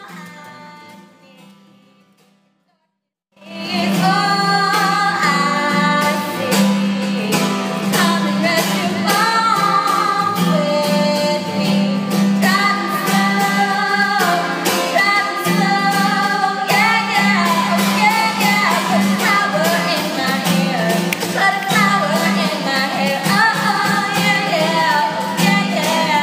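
A woman singing with steady accompaniment. A chord fades out at the start, there is a brief silence, and the song comes in about three and a half seconds in.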